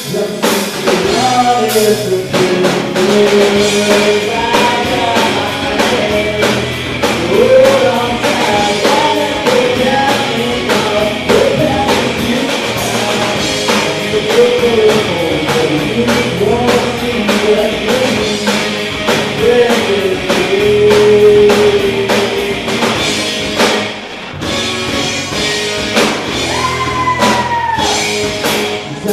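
A country rock band playing live, with a drum kit keeping a steady beat, electric guitars, and a voice singing.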